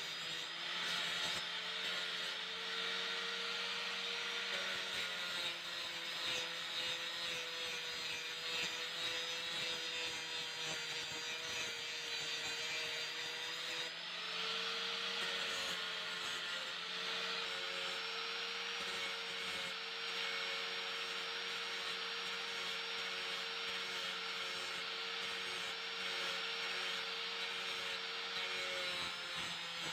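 Electric angle grinder running with a steady whine, its disc grinding against a piece of wood with a continuous rasp.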